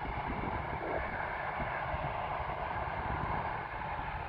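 Distant jet engines of an American Airlines airliner taxiing: a steady rumble with a hissing whine, unchanging in level.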